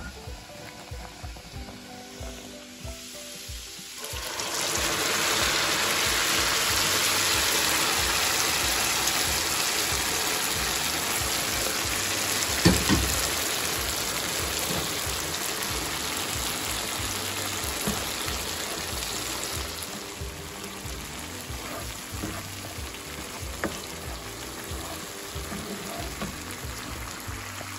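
Tomatoes and green peppers frying in hot oil in a skillet: a loud sizzle starts suddenly about four seconds in, stays strong for several seconds, then slowly dies down to a quieter frying. A single knock about halfway through.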